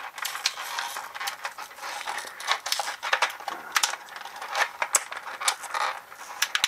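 Clear plastic blister tray crackling and clicking as a tightly held toy action figure is pried out of it. The clicks are irregular and sharp, with no steady rhythm.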